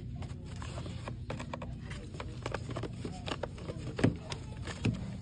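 Irregular small clicks and taps over a steady low hum, with two louder knocks about four and five seconds in.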